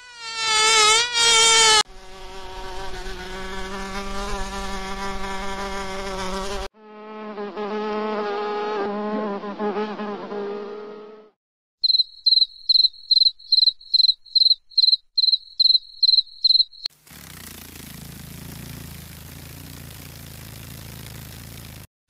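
A run of insect sound clips. First a mosquito's high whining buzz, then two lower steady buzzes of insect wings, then a cricket chirping about a dozen short high chirps, about two and a half a second. Last comes a softer steady rushing noise that stops abruptly near the end.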